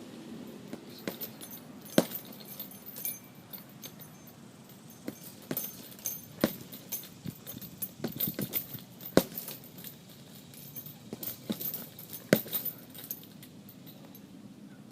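Boxing gloves punching a heavy bag, sharp irregular thuds in short quick runs of a combination, with the bag's hanging chain rattling.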